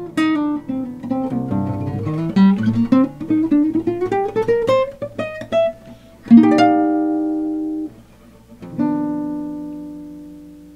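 Eight-string acoustic guitar played solo: a quick run of single notes climbing in pitch, then a chord that is cut off short, and a final chord left to ring out and fade away as the piece ends.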